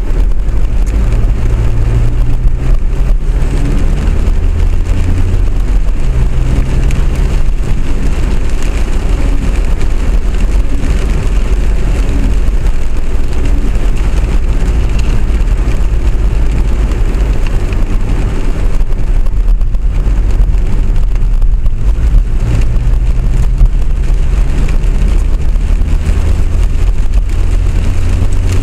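Tram or light-rail vehicle running, heard as a loud steady low rumble with a motor hum that rises and falls in pitch several times.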